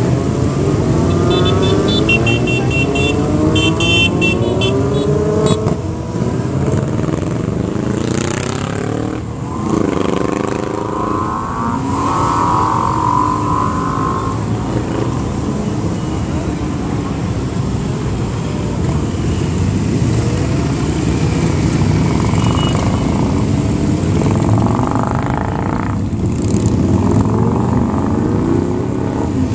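A stream of sportbikes riding past one after another, their engines running and revving, the pitch rising and falling as each bike goes by.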